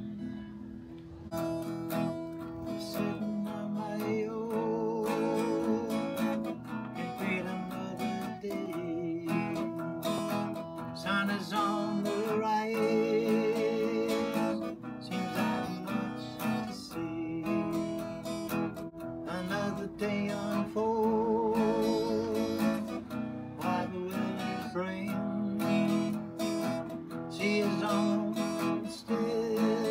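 Acoustic guitar music, plucked and strummed, with a wavering melody line over it; it comes in sharply about a second in.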